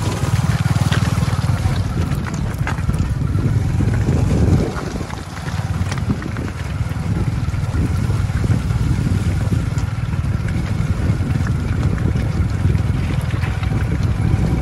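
Motor vehicle engine running under way, with wind buffeting the microphone. The engine eases off briefly about five seconds in, then picks up again.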